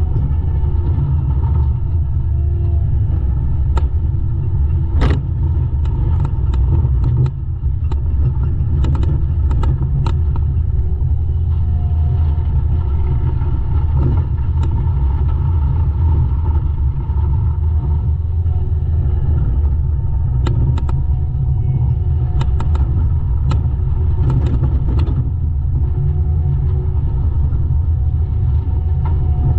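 Diesel engine of heavy land-clearing machinery running steadily with a deep rumble and a few steady tones over it, with scattered sharp clicks and knocks through the stretch.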